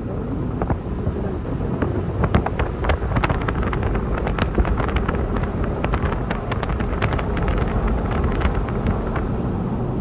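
A car driving on a rough dirt road: a steady low rumble with wind buffeting the microphone and many small sharp clicks throughout.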